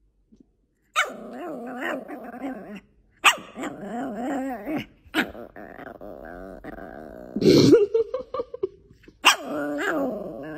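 A small Maltipoo puppy vocalising in a string of warbling, growly 'talking' sounds whose pitch rises and falls. It starts about a second in and comes in several bouts with short pauses, the loudest about three quarters of the way through.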